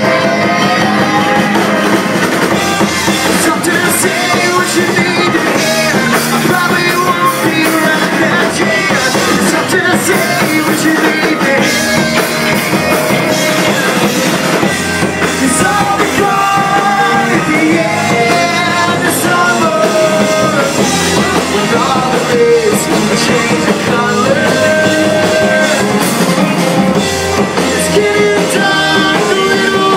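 Live rock band playing: electric guitar, drum kit and a male singer.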